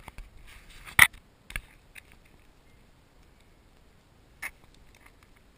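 Sparse close-up clicks and scuffs as a person shifts on a rocky ledge wearing a head-mounted action camera; the loudest is a sharp click about a second in, with smaller ones around one and a half, two and four and a half seconds.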